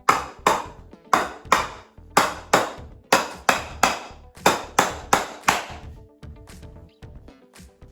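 About a dozen sharp hammer blows, often in quick pairs at two or three a second, knocking workbench parts together during assembly; the blows stop about six seconds in. Quiet background music runs underneath.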